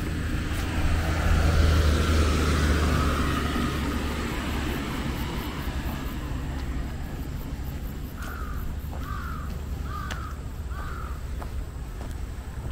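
A vehicle passes, its sound swelling to a peak about two seconds in and then fading away. Later a crow caws four times, about a second apart.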